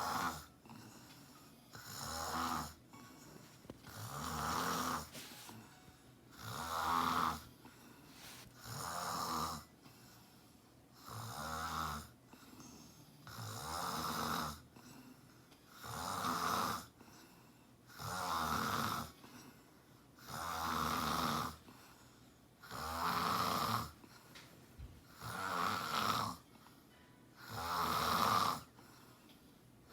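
A sleeping woman snoring steadily, one loud snore roughly every two and a half seconds, each lasting about a second, with quieter breathing in between.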